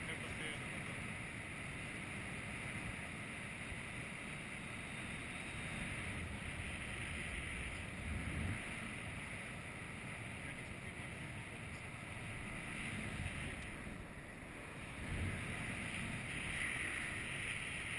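Steady rush of wind buffeting the microphone, with low gusts swelling about 8, 13 and 15 seconds in.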